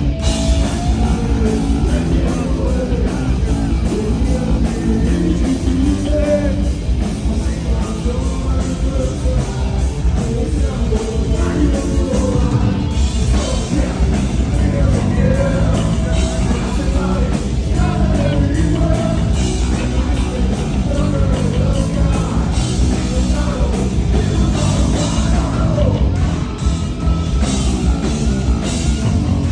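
Heavy metal band playing live: loud distorted guitars, bass and drums, with a singer's voice wavering over the top.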